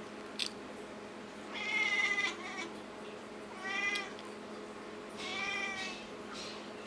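Siamese cat meowing three times, each a drawn-out call, the middle one the shortest.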